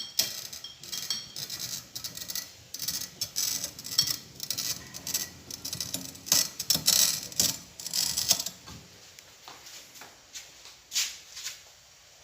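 A glass bottle being worked in a bottle cutter: a quick run of scratchy clicks and scraping for about eight seconds, then a few separate clicks.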